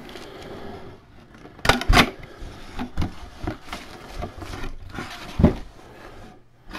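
Cardboard box being opened by hand: rustling and scraping of the flaps, with several sharp knocks and taps, the loudest about two seconds in and again about five and a half seconds in.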